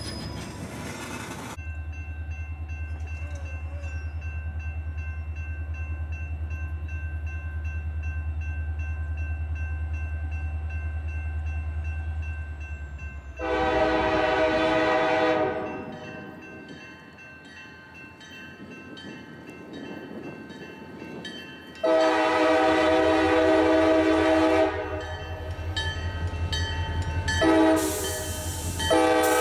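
Freight tank cars rolling past, then a CSX diesel locomotive's low steady rumble. Its multi-chime air horn sounds three long blasts as it approaches, with a fourth beginning at the end.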